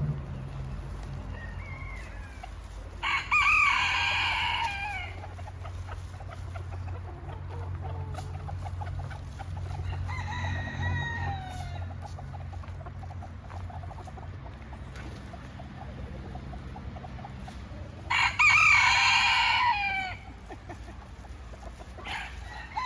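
Roosters crowing: two loud crows of about two seconds each, one about three seconds in and one about eighteen seconds in, with a fainter crow around ten seconds and another starting near the end, over a steady low hum.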